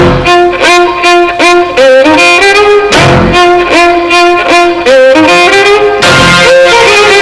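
Background music: a violin melody over a steady beat.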